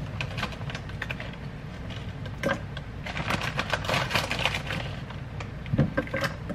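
Mixed berries poured from a plastic bag into a blender cup: a run of small clicks and rattles with the bag crinkling, thickest about halfway through, with a couple of sharper knocks.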